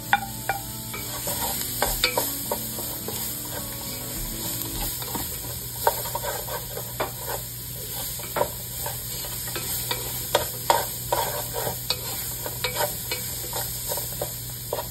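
Diced onion, garlic and ginger sizzling in oil in a nonstick pot, stirred with a wooden spatula that taps and scrapes against the pan again and again at an uneven pace.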